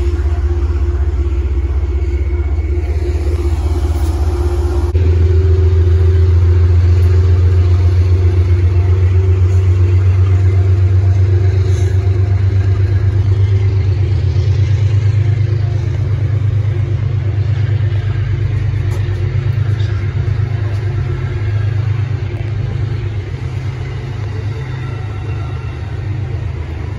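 Amtrak train of Amfleet passenger cars rolling past the platform: a loud, steady low rumble with a humming tone over it. The sound shifts about five seconds in and then eases off gradually.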